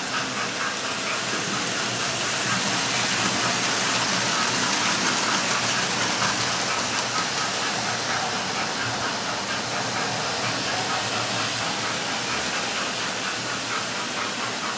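Model railway trains running on the layout: a steady steam hiss from the sound effect of a sound-fitted model GWR King-class steam locomotive, over the running noise of the model trains on the track.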